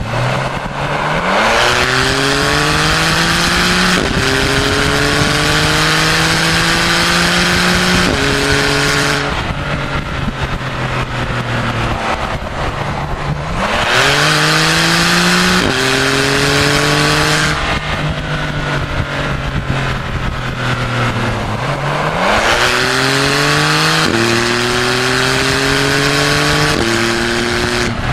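Porsche 991 Carrera 4S 3.0-litre twin-turbo flat-six heard at the tailpipes through a Supersprint cat-back exhaust under hard acceleration. It pulls three times, each time rising in pitch through one or two quick upshifts, and the note drops at each shift. Between the pulls it goes off the throttle.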